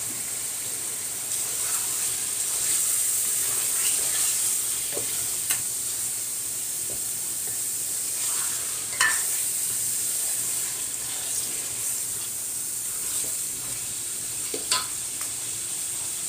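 Chicken pieces sizzling in tomato paste in a metal pot while a wooden spatula stirs them. There is a steady high hiss of frying, with a few knocks of the spatula against the pot; the clearest come about nine seconds in and near the end.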